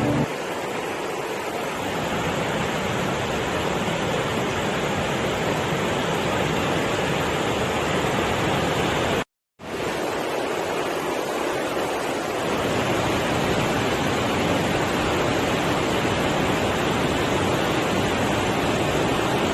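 Steady, dense rushing of water, even and unbroken apart from a sudden drop to silence for a moment about nine seconds in.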